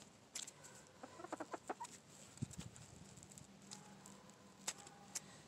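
Faint chicken clucking, with a quick run of short clucks about a second in. A few sharp clicks are scattered through it, as scissors snip through wing feathers.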